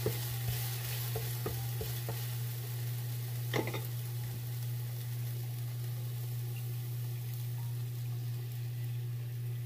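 Egg frying and sizzling in oil on a griddle pan, with a wooden spatula scraping and tapping against the pan a few times in the first couple of seconds. One sharper knock comes about three and a half seconds in. A steady low hum runs underneath.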